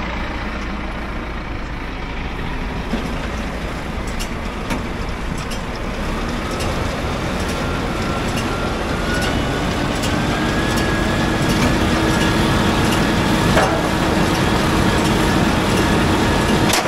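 Farm tractor engine running a round baler off its PTO, spinning up about six seconds in, with a rising whine. A regular light ticking comes from the machinery throughout.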